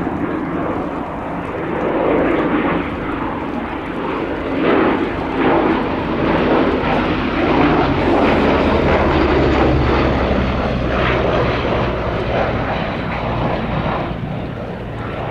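A Gloster Gladiator biplane and a Westland Lysander fly past together, their Bristol Mercury nine-cylinder radial engines and propellers making a steady, rough drone. The drone grows fuller and lower about halfway through as the pair come closest, then eases slightly near the end.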